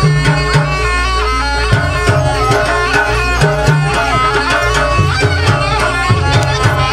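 Traditional Banyuwangi barong accompaniment music: hand drums beating a steady, busy rhythm with deep drum tones, under a wavering, sliding melody on a reed wind instrument.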